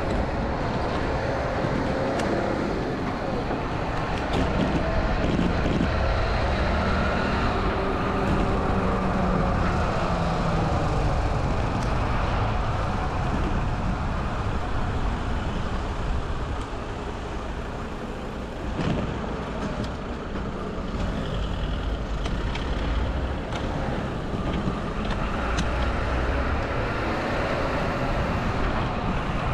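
Road traffic in a city: motor vehicles running and passing, heard steadily from a road bike on the move.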